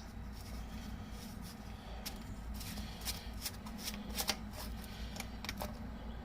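A run of small, sharp clicks and rattles, like hard small parts being handled, over a steady low hum; the clicks come thickest in the second half.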